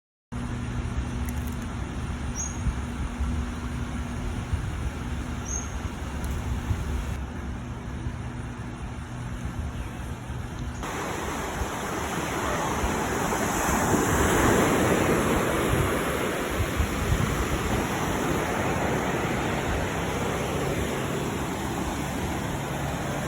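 Steady outdoor noise with a low hum, changing about eleven seconds in to a broader rushing noise that swells in the middle, like wind and surf.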